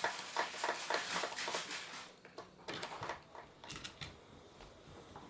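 Small screwdriver turning out the bottom screw of a smart deadbolt's interior unit: a run of light, quick clicks and scrapes for about two seconds, then a few scattered clicks.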